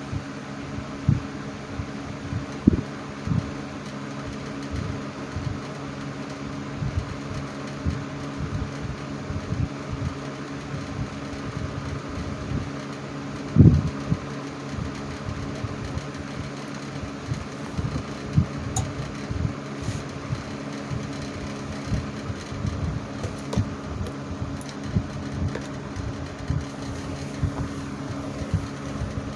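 Two vintage box fans running together on low speed, a 1980s Patton with a three-speed Fasco motor and a 1960s Frigidaire with a two-speed General Electric motor. They give a steady motor hum and air noise, broken by irregular low thumps, the loudest about fourteen seconds in.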